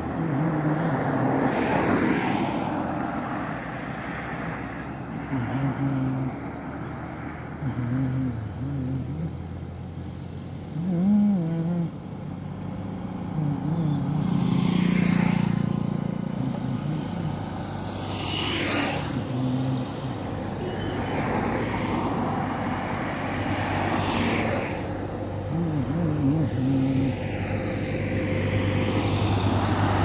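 Road traffic passing on a highway, with about four vehicles going by one after another. Near the end, a heavy vehicle's engine drone grows steadily louder as it approaches.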